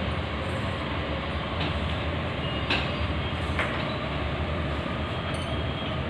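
Steady low rumble and hiss of background room noise, with a few light clicks about one and a half, two and a half, and three and a half seconds in.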